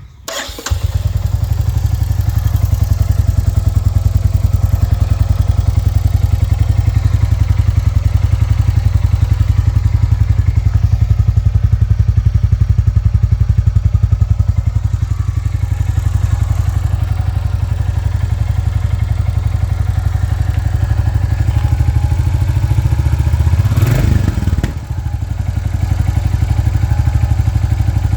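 Royal Enfield Classic 350's 349 cc single-cylinder engine starting up and then idling with a steady run of low, even exhaust pulses. A brief change in the sound comes near the end.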